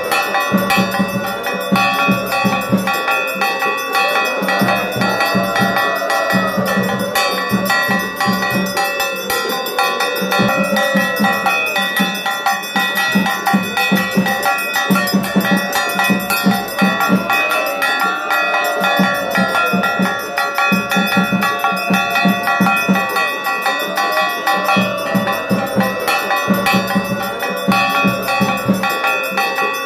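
Temple bells ringing rapidly and without a break during the aarti, the waving of lamps before the deity.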